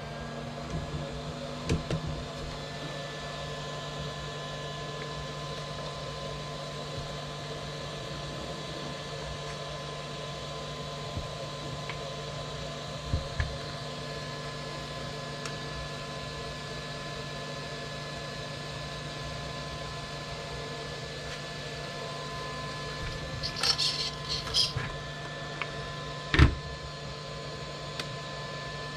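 Steady electrical hum with several faint steady tones underneath. A few light clicks of handling come through, then a quick flurry of small clicks near the end and one sharp knock.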